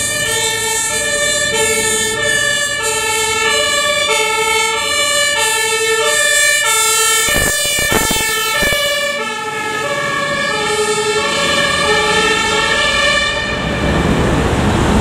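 German two-tone fire-engine siren (Martinshorn) alternating between a lower and a higher note about every two-thirds of a second, on a fire engine driving past on an emergency run. A few dull thumps come just before the siren grows fainter after about nine seconds, and road and wind noise takes over near the end.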